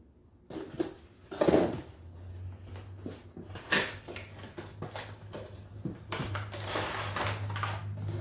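Small cardboard boxes of prepainted plastic miniatures being handled: irregular rustling, sliding and knocks as a box is pulled from the case and opened, with something loose shifting inside, a figure whose feet have broken off its base. A low steady hum comes in about two seconds in.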